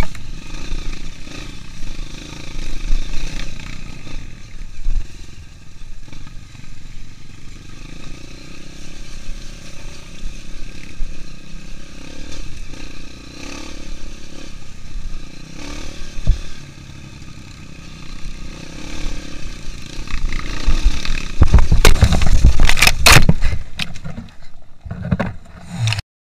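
Honda CRF230's air-cooled single-cylinder four-stroke engine running as the trail bike rides over a rough dirt track, with clatter from the bike. About 21 seconds in comes a loud burst of crashing, knocks and scraping as the bike hits a rock and goes down into the bushes, and the sound cuts off suddenly near the end.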